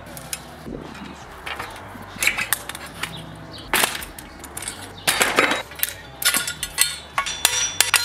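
Metal bike parts clanking and clinking as a BMX bike is taken apart, with irregular knocks that grow busier from about halfway and hammer strikes on the crank, some leaving a metallic ring, near the end.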